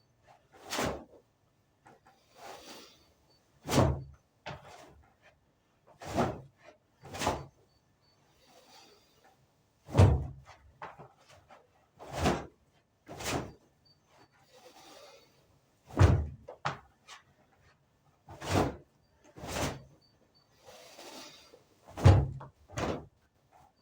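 A series of sharp thuds, about fifteen in all, coming irregularly every one to two seconds, with soft rushing sounds in some of the gaps.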